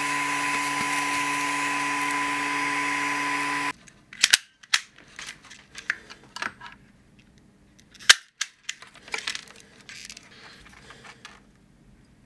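The cooling fan of a 5.5 W blue diode laser module running with a steady hum and whine, which cuts off abruptly about three and a half seconds in. Then a series of sharp clicks and snaps from handling wires and a wire-stripping tool, the loudest about eight seconds in.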